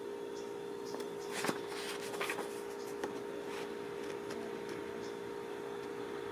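A sheet of paper rustling and thin tungsten electrodes being handled against it. There are a few soft rustles and light clicks, the strongest about a second and a half in and again just after two seconds, over a steady background hum.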